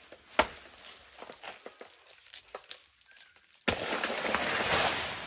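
Dry banana leaves and stalk crackling and snapping as a banana plant is pulled at, with one sharp snap about half a second in. About three and a half seconds in, a sudden loud rush of rustling leaves begins and lasts over a second.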